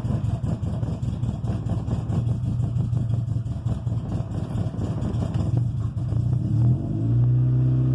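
1995 Honda Civic coupe's four-cylinder engine idling roughly and unevenly on a cold start. About seven seconds in, the idle rises and smooths into a steady, even run. The rough running happens only while the engine is cold, and the owner hasn't found the cause.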